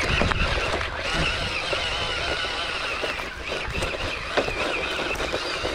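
Radio-controlled model construction trucks running. Their small motors make a wavering whine in the first second, over a steady rumble with scattered clicks and knocks.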